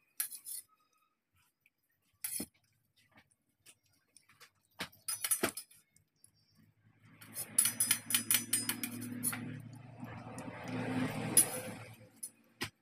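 Steel bowl clinking and scraping on a hard floor as a child eats from it by hand: a few short, sharp clinks spread apart, then a busier stretch of clinking and rustling with a low undertone from about seven seconds in.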